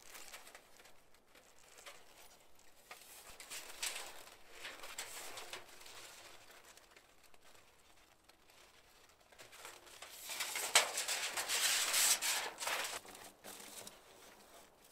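Thin rolled titanium stove-chimney sheet being spooled out by hand into a pipe: metal rustling and scraping, in two louder stretches, with a sharp snap about eleven seconds in.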